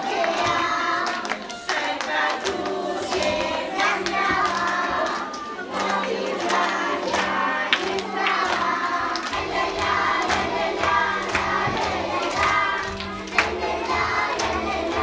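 A group of children singing together over recorded music with a steady beat.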